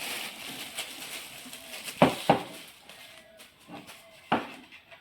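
Handling sounds while unboxing: a light rustle of packaging, then three sharp knocks, two close together about two seconds in and one more near the end, as items are set down on a hard surface.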